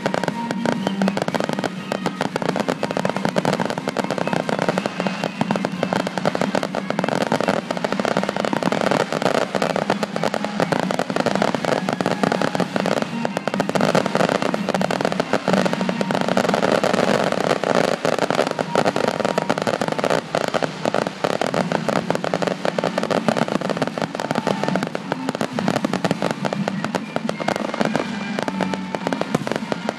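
Fireworks display going off without a break: dense crackling and popping, many charges in quick succession.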